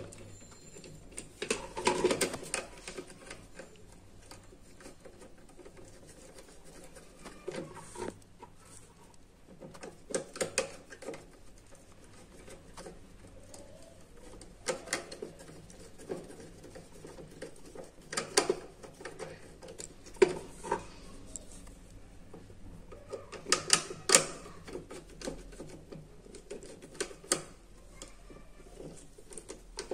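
Small screwdriver clicking and scraping on the screws of a circuit board's terminal block as wires are fastened, with short bursts of handling noise from the wires and board, in irregular clusters of clicks.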